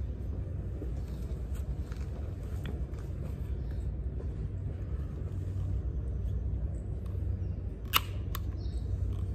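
Plastic clicks of over-ear headphones being handled and put on, a few small ones and then two sharp clicks close together about eight seconds in, over a steady low background rumble.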